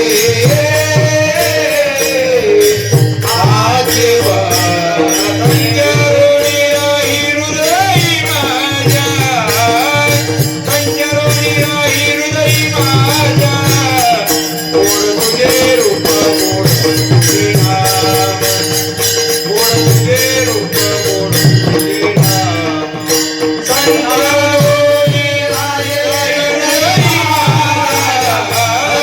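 Varkari devotional singing: a man's voice sings a traditional melody that glides and bends over steady held drone notes, accompanied by a pakhawaj (mridang) drum beating a steady rhythm and jingling percussion.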